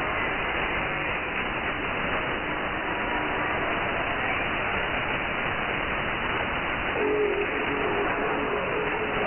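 Shortwave static and hiss on a weak pirate-radio signal received in upper sideband, steady throughout, with faint music tones under the noise. About seven seconds in, music comes up more clearly through the static.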